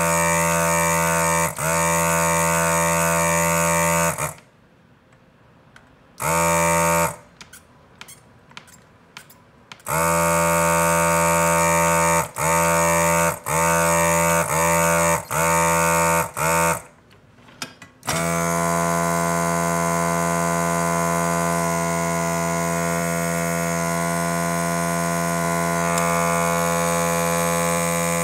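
The HAKKO FR-301 desoldering gun's built-in vacuum pump running with a steady pitched hum as it sucks molten solder from a circuit board's pins. The pump starts and stops many times as the trigger is pulled and released, with a few short gaps and one long run near the end.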